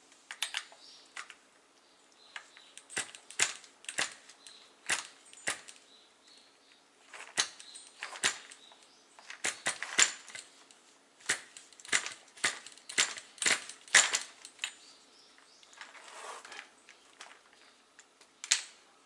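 Irregular sharp clicks and clacks of hands and a hand tool working on a Tamiya TGX nitro RC car's plastic chassis and engine, busiest in the middle, over a faint steady hum. The engine is not running.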